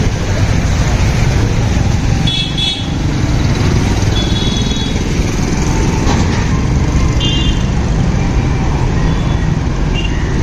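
Loud, steady road traffic, with four short high-pitched vehicle horn toots spread through it.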